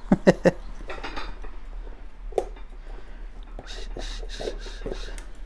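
Metal nippers cutting and prying at the stitched leather welt of a boot to take the welt off: three sharp clicks in the first half second, a single click a little past halfway, then lighter scattered snips and scraping.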